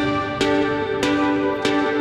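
Background music: a slow, calm melody with a new note about every 0.6 seconds, each note ringing on.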